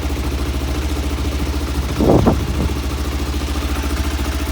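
Kawasaki GPZ motorcycle engine idling cold on choke after a first-time start, running steady and smooth, which the owner calls 'sweet'. There is a brief louder surge about two seconds in.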